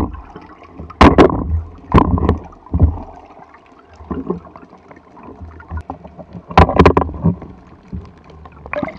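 Underwater water noise on a speargun-mounted camera as a freediver moves just below the surface: sloshing and bubbling in several sudden loud bursts, about one, two and three seconds in and again around six and a half to seven seconds, over a low steady rumble.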